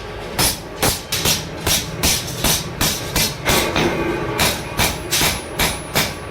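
Blacksmith's hammer striking steel on an anvil in a quick, steady run of blows, about three to four a second.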